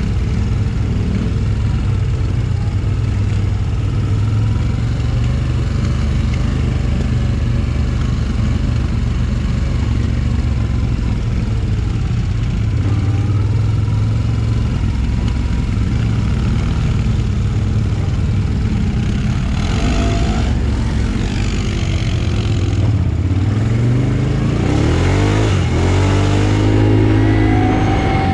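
Quad bike (ATV) engine running steadily at low speed, then revving up and accelerating over the last few seconds, its pitch rising and falling.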